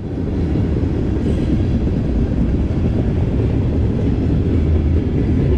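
Freight train cars rolling past, a steady low rumble of wheels on the rails.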